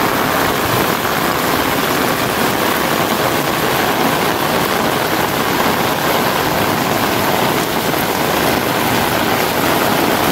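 Heavy rain falling steadily on a concrete rooftop, a loud even hiss.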